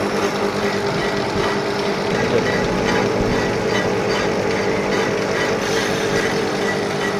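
Lathe running steadily under power: an even machine noise with a constant hum and a faint high whine.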